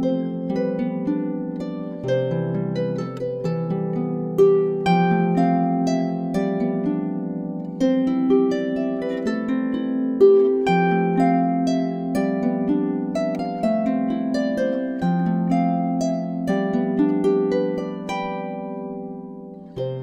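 Solo Dusty Strings FH36S 36-string lever harp playing a plucked melody over low bass notes that change every few seconds. The phrase dies away near the end.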